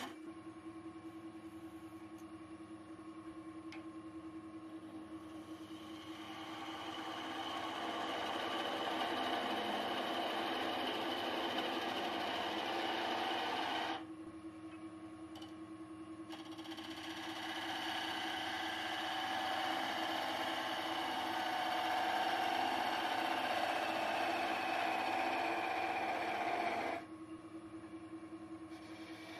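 Wood lathe running with a steady hum while a gouge cuts a spinning stone pine spindle, a hissing shaving noise that builds up over two long passes. Each pass breaks off abruptly, the first about halfway through and the second near the end.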